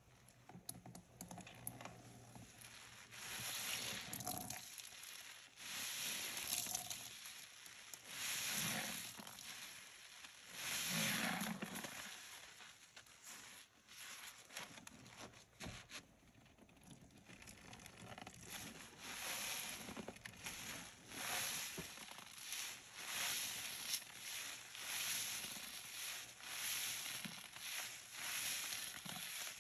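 Rubber-gloved hands squeezing a sponge full of dry, crackly dish-soap foam, a squishing crackle with each squeeze. The squeezes come unevenly at first, then settle into about one a second.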